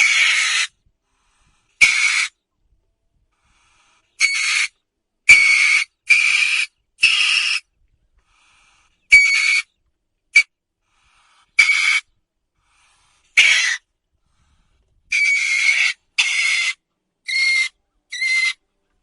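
Calls of a mustelid, a river otter or weasel: a series of about fourteen short high-pitched calls, each under a second long, separated by gaps of silence.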